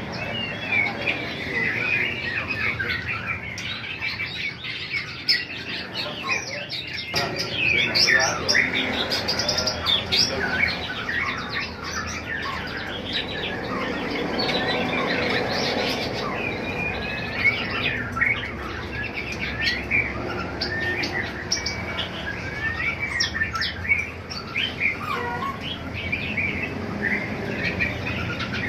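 Many small shop birds chirping and calling at once: a dense, overlapping chatter of short high chirps and whistles that never lets up.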